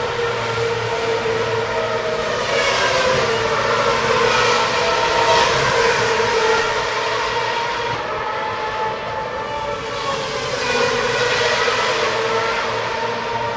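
Racing car engines at high revs, a continuous high-pitched whine that swells and fades as cars pass, loudest about five seconds in and again around eleven seconds.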